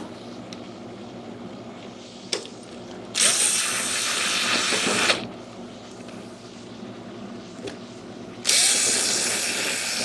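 A DeWalt cordless screwdriver runs twice, for about two seconds each time, backing screws out of a fridge's sheet-metal back cover. There is a short click between the two runs.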